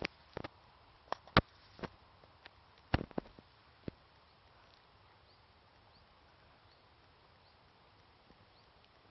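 A run of sharp, irregular thumps and knocks close to the microphone in the first four seconds, then a quiet outdoor background with a faint high chirp about once a second.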